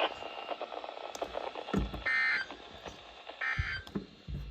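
Weather alert radios beeping their alert after the weekly NOAA test alarm: two short, high beeps about a second and a half apart, with a couple of low thumps between them.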